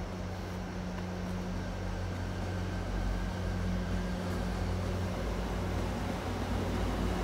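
MBTA commuter rail train approaching, cab car first: a steady low hum and rumble that grows gradually louder as it nears.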